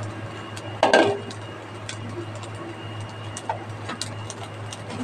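Food in a hot stainless wok giving off sparse crackling ticks over a steady low hum, with one loud clatter of a utensil against the pan about a second in.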